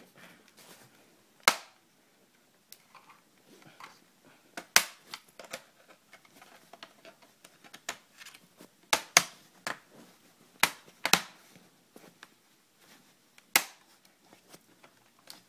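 Plastic clips of an MSI GT60 laptop's bottom panel snapping into place as the panel is pressed down: a series of sharp, irregularly spaced clicks, several coming close together past the middle.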